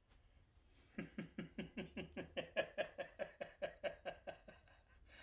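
A man laughing: a long run of short "ha" pulses, about five a second, beginning about a second in and dying away near the end.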